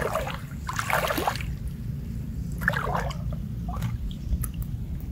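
Water splashing and sloshing in about four short bursts over a steady low rumble, as a gill net is worked in the water.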